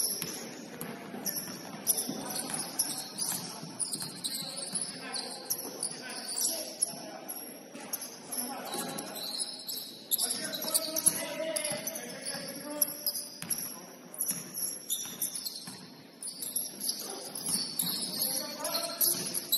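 Sounds of a basketball game in play: a ball bouncing on the court among players' voices.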